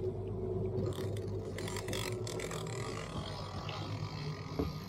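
Boat engine running steadily at slow trolling speed, a low drone, with a few brief bursts of hiss in the first couple of seconds.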